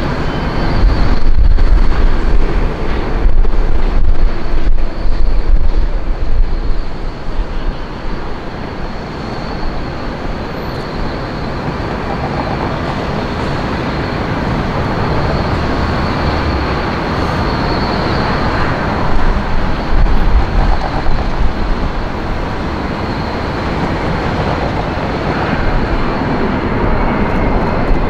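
Airbus A380 on final approach, its four jet engines giving a steady roar that swells again in the second half as it comes closer. Heavy gusts of wind hit the microphone during the first few seconds.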